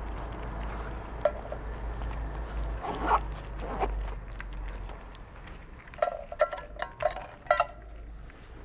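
Two kittens crunching dry kibble from a plastic dish: a run of small clicks and crunches, with a few short squeaky sounds, most of them bunched together over a second or so near the end. A low rumble underneath fades out about halfway through.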